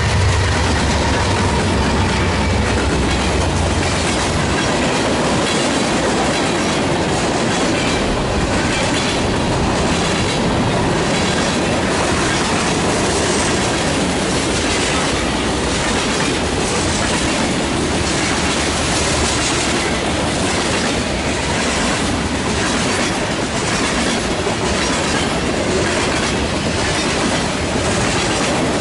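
Norfolk Southern diesel locomotives passing close, their deep engine rumble strong for the first few seconds and then easing. A long string of covered hopper cars follows, rolling by with steady wheel-on-rail noise and a regular clickety-clack of wheels over rail joints.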